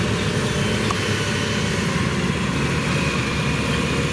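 Kubota DC-105X combine harvester's four-cylinder diesel engine (Kubota V3800) running steadily at high revs as the machine travels fast over the rice field, an engine just freshly overhauled.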